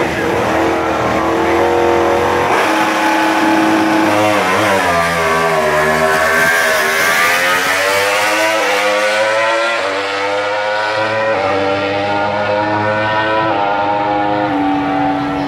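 MotoGP racing motorcycle engines, four-cylinder four-strokes, running loud: the pitch dips and rises, then a bike accelerates, its pitch climbing and stepping down several times as it shifts up through the gears.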